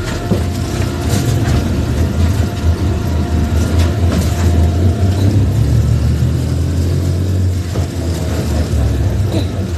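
Motor vehicle on the move: a steady, loud low rumble of engine and road noise, with a faint steady hum above it.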